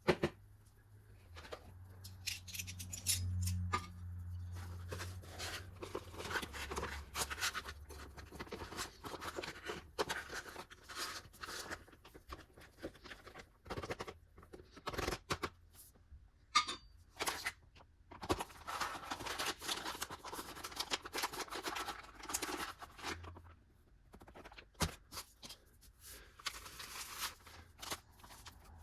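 Plastic and foil ration packets handled, rustled, cut and torn open, with many sharp clicks and crackles and stretches of steady rustling.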